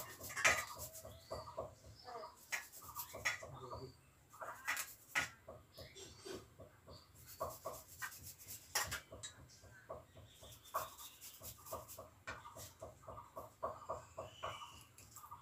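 Garlic cloves rubbed quickly back and forth on a small metal hand grater over a steel bowl, a run of short rasping scrapes several a second with an occasional sharper click of metal. The garlic is being grated to a near paste in place of crushing it on a grinding stone.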